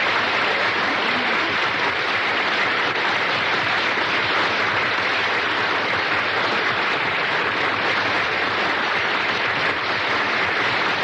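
Audience applauding, a steady, unbroken sound of many hands clapping.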